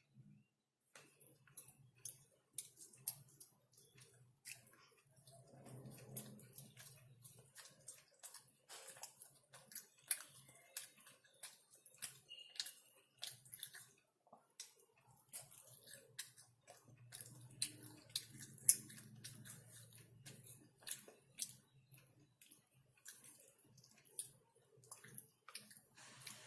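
Close-miked eating of chicken: wet chewing, lip smacks and small mouth clicks, many short sharp sounds following one another throughout. Two stretches of a few seconds carry a low hum beneath them.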